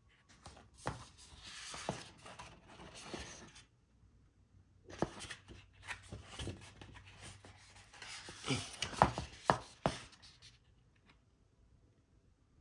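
Hands handling and opening cardboard packaging: rustling and scraping with sharp taps and clicks, in two spells with a pause of about a second between them. The loudest clicks come near the end.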